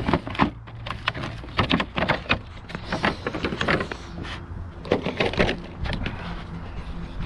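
Irregular clicks, knocks and crackles of a hard clear plastic clamshell pack of magnetic trailer lights being handled, with its cable being pulled out.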